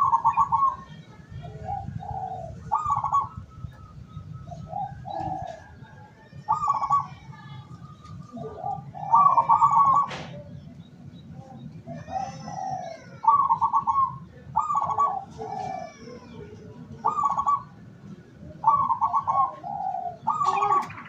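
Zebra doves (perkutut) cooing, a phrase every second or two at two different pitches, as if two birds were answering each other. Faint higher chirps from other small birds can be heard over a low steady hum.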